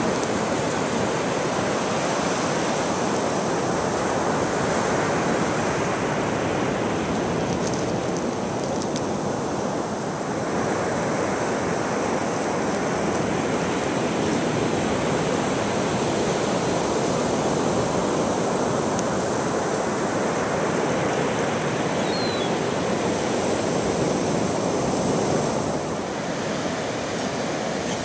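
Ocean surf washing steadily onto the beach, swelling and easing slowly as the waves break.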